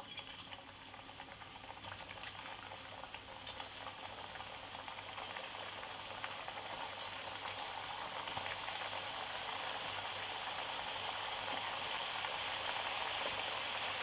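Potato slices frying in hot refined oil in a frying pan: a steady sizzle with fine crackling that grows gradually louder.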